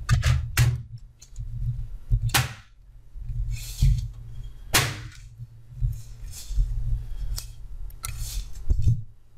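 Plastic front panel of a desktop computer case being pressed onto the chassis around the optical drive bay: about four sharp plastic clicks and knocks, with softer scraping and rubbing between them over a low handling rumble.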